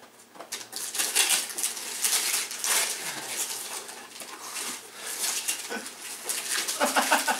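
Wrapping paper crackling and tearing as a present is unwrapped, in a dense run of irregular rustles, with a short burst of voice near the end.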